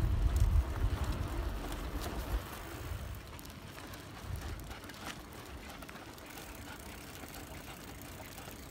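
Bicycle riding noise: a strong low rumble of wind and ground buffeting for the first couple of seconds, then a quieter steady rolling noise with a few light clicks.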